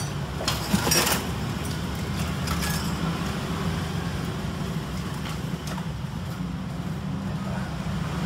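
Steady low background hum, with a few short clicks and scrapes about a second in and single fainter clicks later, from multimeter probes and tools being handled on a TV circuit board.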